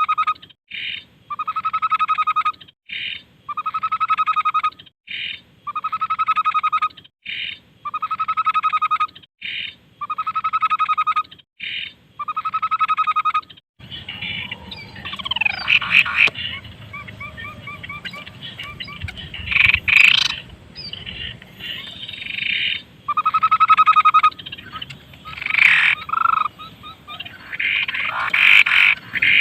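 Tepus babbler calling: a buzzy, rapidly pulsed call repeated evenly about once every one and a half seconds. About halfway through it gives way to a busier run of varied chirps, short trills and gliding whistles, and the pulsed call returns briefly near the end.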